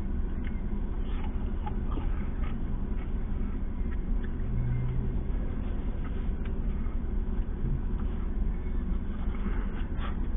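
Steady low rumble of outdoor background noise, with a few faint clicks and a brief low hum about halfway through.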